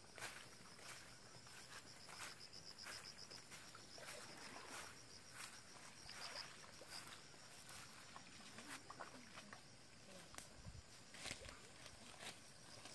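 Faint footsteps and swishing through tall weeds at a steady walking pace. Insects chirp in a high, pulsing trill that comes and goes.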